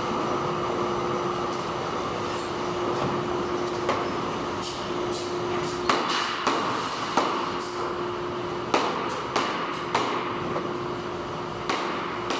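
Factory machinery in a receipt-roll paper plant running steadily with a constant hum. Sharp knocks and clicks from the handling of rolls and boxes begin about six seconds in and repeat irregularly.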